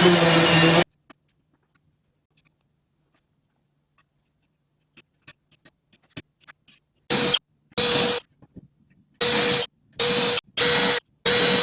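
An electric power tool running steadily, cut off abruptly just under a second in. After a quiet stretch with a few light clicks, the tool is run in six short bursts of about half a second each.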